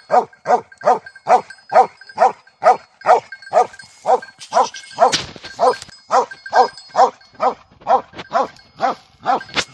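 Hunting dog barking steadily at a wild boar, about two to three barks a second, the rhythm of a dog holding a boar at bay. A short rush of noise breaks in about five seconds in.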